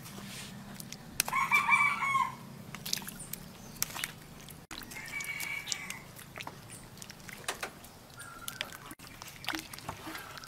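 Domestic chickens calling: a loud call about a second long just over a second in, another around five seconds, and a short one near the end. Light clicks and clatter of food being tipped from a plastic colander into a metal pot come between the calls.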